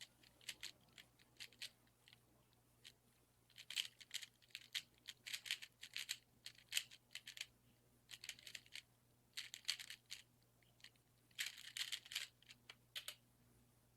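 Faint, rapid plastic clicking of a Rubik's speedcube being turned, in quick bursts of several turns with short pauses between them, as when scrambling the cube.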